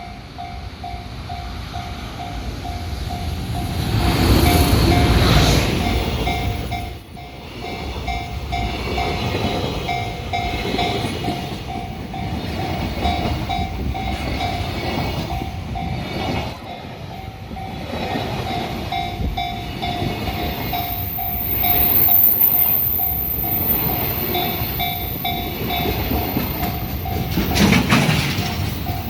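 Level-crossing warning bell ringing in a steady repeating ding while JR Kobe Line trains pass through the crossing at speed. The rumble and wheel clatter of the trains swell and fade, loudest about four seconds in and again near the end.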